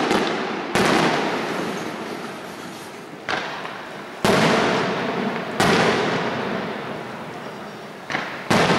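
Aerial firework shells bursting one after another, about six sharp booms a second or so apart. Each boom trails off in a long rolling echo.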